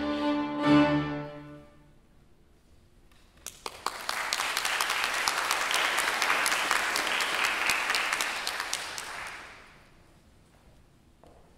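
Violin and piano end on a final chord that dies away within the first two seconds. After a short silence, a few scattered claps grow into audience applause, which fades out near the end.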